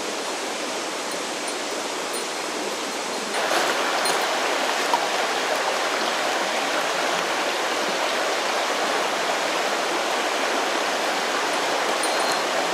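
Mountain stream rushing steadily, stepping up louder about three seconds in.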